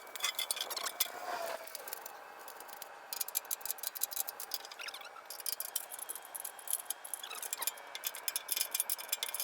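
A wrench working nuts off a go-kart's metal subframe: a run of quick, light metallic clicks and clinks, coming thick and fast from about three seconds in.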